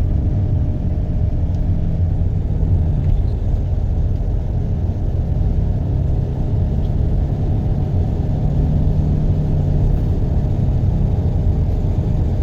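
Steady low vehicle rumble with a faint engine hum running under it.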